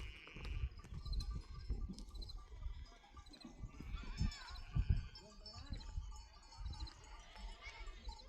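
Small livestock bleating in a few short calls, the clearest about four seconds in, over a low rumbling noise.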